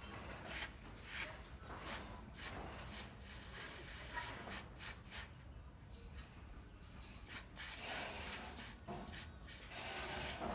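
A hand tool rubbing or scraping over a building surface in repeated short strokes, irregularly about one to two a second.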